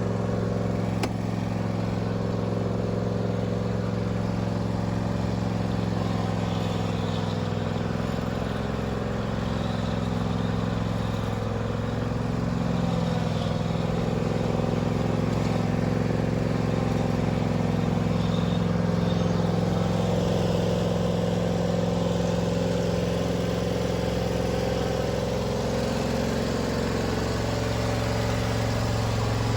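Lawn mower engine running steadily, its pitch shifting slightly a couple of times.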